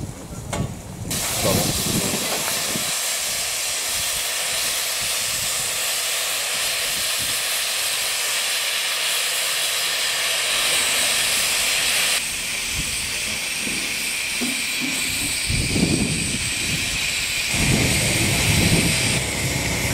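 Steam hissing loudly and steadily from an Andrew Barclay 0-4-0 saddle tank steam locomotive standing in steam. The hiss shifts in tone about twelve seconds in, and a few low rumbles join it near the end.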